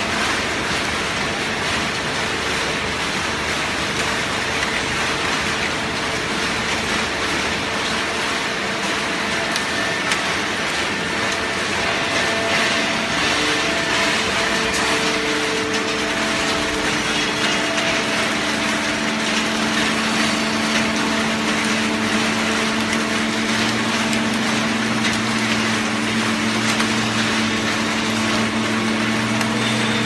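Waste baler production line running: steady machinery noise with a constant hum from its motors. A deeper hum grows stronger in the second half.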